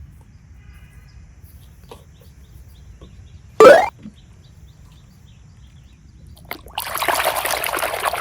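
Slime being handled: mostly a low hiss, a short loud rising sound a little past the middle, then a dense wet crackling noise in the last second and a half.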